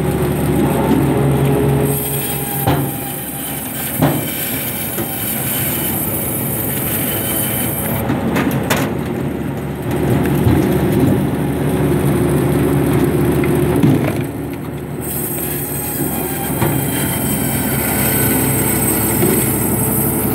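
Tractor-driven vertical band saw running and cutting through a log, over the steady drone of the engine. A high hiss from the blade in the wood comes in twice for several seconds, with a few short knocks as the log is pushed along the table.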